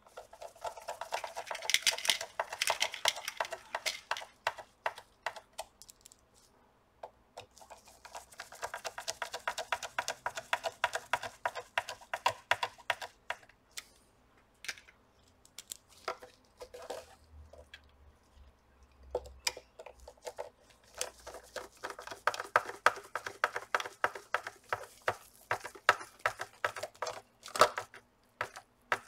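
Screwdriver driving small screws into the soundbar's plastic housing: runs of rapid fine clicking and ticking in three main bursts of a few seconds each, with scattered clicks between them.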